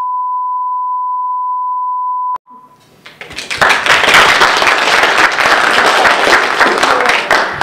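A steady single-pitch test-card tone that cuts off with a click about two and a half seconds in, followed by an audience applauding.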